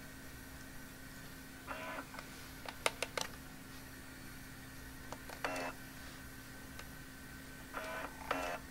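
Kodak Kodavision Series 2000 8mm camcorder being switched from recording to playback: a quick run of four clicks from its controls about three seconds in, and several short mechanical bursts from the tape transport, over a steady low hum.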